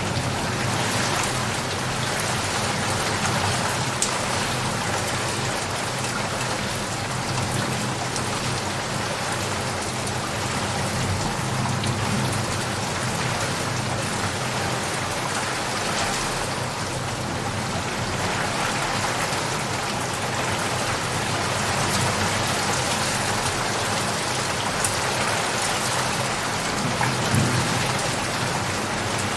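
Steady heavy rain falling and pattering on surfaces, with scattered sharper drop hits.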